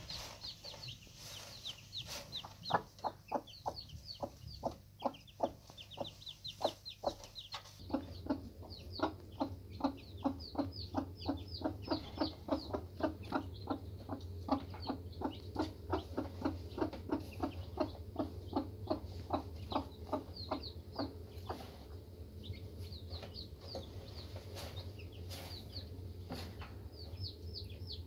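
A mother hen clucking to her chicks in a steady run of short low clucks, about three a second, while the chicks peep in short high chirps. The clucking thins out after about twenty seconds, leaving mostly the chicks' peeping.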